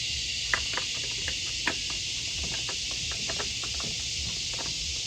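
Scattered light clicks and taps of plastic tail-light parts and their clips being handled, about a dozen spread over a few seconds, over a steady high hiss.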